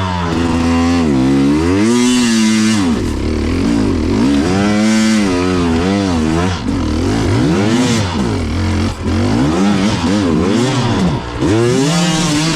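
Small off-road motorbike engine revving up and down over and over while being ridden, its pitch rising and falling every second or two.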